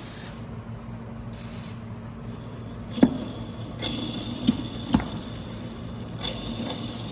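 Short hisses of aerosol penetrating lubricant being sprayed onto crankshaft bearings, then three sharp metallic knocks as parts are handled, over a steady low hum.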